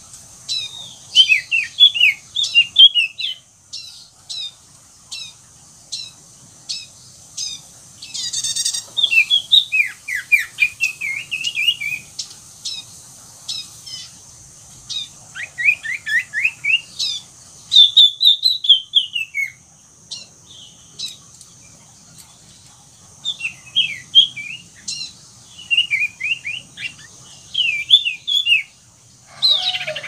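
Common iora singing busily: bursts of quick, short, falling whistled chirps and chattering runs of notes, broken by brief pauses, with one harsher buzzy call about eight seconds in.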